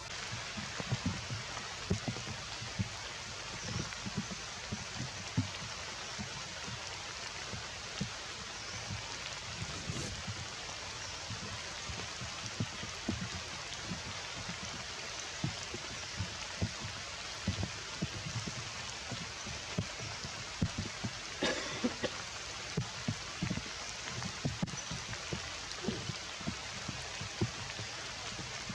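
Steady rain falling, with many irregular heavy drops tapping on nearby surfaces.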